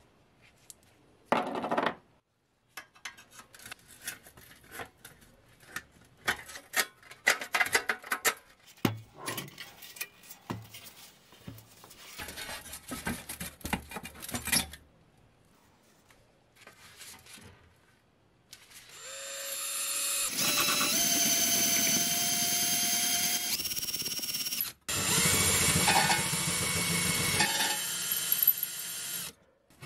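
Light metal clicks and knocks as rusty pressed-steel toy-truck parts, wheels and axles are handled and taken apart. Then a cordless drill whines up to speed and runs steadily, boring into a rusted pressed-steel toy-truck part. It stops briefly once and starts again.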